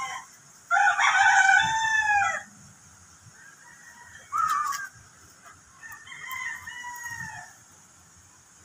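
A rooster crowing, one long loud crow about a second in. A short call follows, then a fainter crow around six seconds in.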